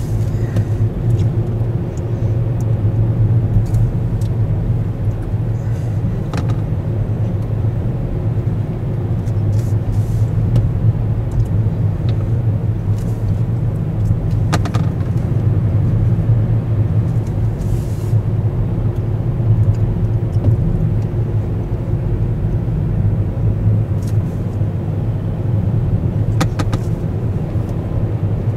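Car driving, with a steady low drone of engine and road noise and a few faint clicks and ticks.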